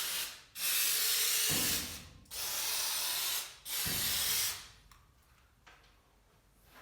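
Aerosol can of white lithium grease spraying onto garage door moving parts in short hissing bursts: the end of one, then three more, each about a second long, with short pauses between. After the spraying stops there are a few faint clicks.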